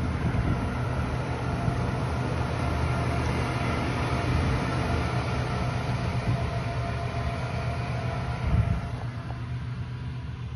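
John Deere 8345RT tracked tractor's engine running steadily under load as it pulls a reversible plough 20 cm deep through clay soil; a low, even drone that grows quieter near the end.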